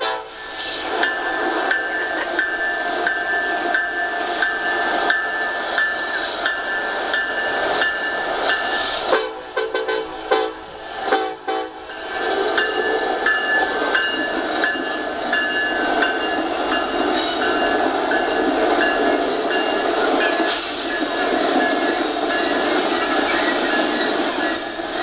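Freight train rolling past, heard through a TV speaker, with a high steady tone over the rail noise. About nine seconds in come a few short horn blasts, and from about twelve seconds a Norfolk Southern diesel locomotive and coal hoppers pass, louder and denser.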